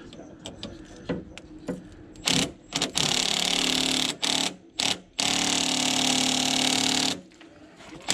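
Handheld power tool, likely an air ratchet or impact wrench, running freely in short blips and then longer steady runs with a hum and a hissing whir, spinning the new nut onto a sway bar link. A few light clicks of handling come first.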